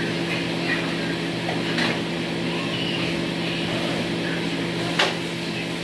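Steady low electrical hum over a background hiss, with a faint knock about two seconds in and a sharp click about five seconds in.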